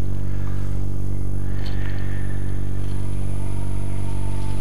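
Wood lathe's motor running steadily at low speed: a constant hum.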